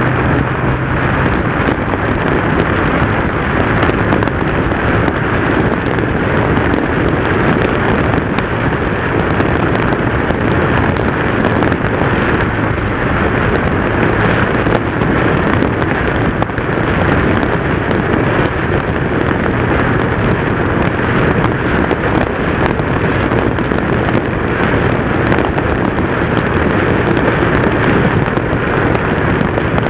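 Motorcycle, a Yamaha TDM, cruising at a steady road speed, heard from a bike-mounted action camera: heavy wind rush on the microphone mixed with engine and tyre noise, with a faint low engine hum clearer near the start and end.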